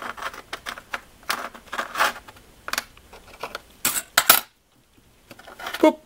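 A small steel pry tool clicks and scrapes against a two-piece plastic push pin in a Saturn outer door handle as the pin is worked out. There is a run of light clicks, then two sharper clicks about four seconds in.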